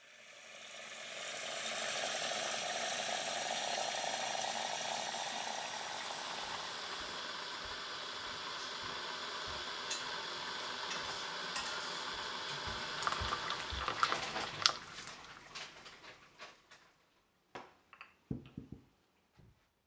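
Electric kettle heating water just short of the boil: a steady hiss of heating water that fades in, picks up a flurry of pops and clicks about two-thirds of the way through, then fades away. A few soft knocks follow near the end.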